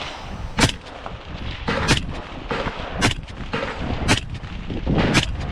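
Five rifle shots fired in steady succession, about one a second, each a sharp crack.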